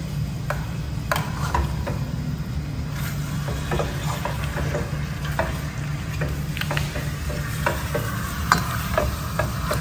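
Chicken pieces and ginger-garlic paste sizzling in a metal pan while a black spatula stirs them, with short scrapes and clicks of the spatula against the pan, over a steady low hum.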